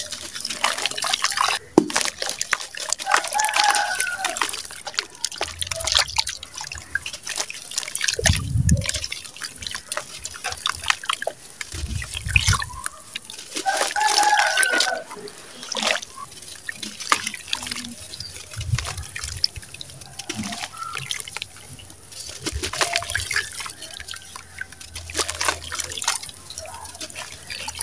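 Wet sand-cement chunks crushed by hand and crumbling into a basin of water: irregular splashing and dripping with many small crackles as grit and pieces drop into the water, and a couple of dull thuds partway through.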